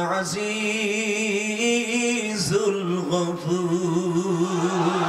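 A man's voice chanting in long, drawn-out melodic notes with a wavering vibrato, broken once by a short breath about two and a half seconds in.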